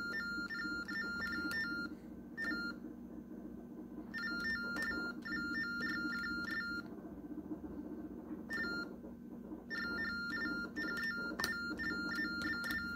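Ultratec Compact TTY sending typed characters as Baudot teletype tones: fast warbling beeps flicking between two high notes, in three runs of a couple of seconds each and two brief blips as keys are typed. Soft key taps and a steady low hum sit underneath.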